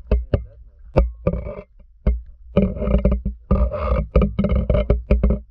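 Muffled knocks, sharp clicks and water sloshing, heard through an underwater camera's housing over a constant deep rumble. A cluster of sharp clicks comes in the first second, then a run of irregular rustling knocks follows.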